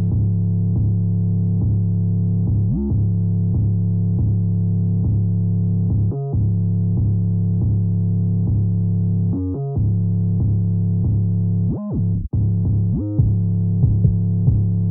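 Synthesizer background music: a low, sustained bass chord with a steady pulse, cutting out briefly a few times.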